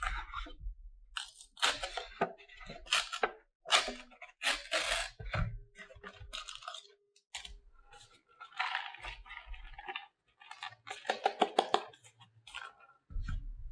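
Instant cup noodle being opened and emptied by hand: the paper lid peeled back, the seasoning sachet pulled out from beside the dry noodle block, and dried flakes shaken out. The result is an irregular run of crinkling, rustling and crunching noises with short pauses.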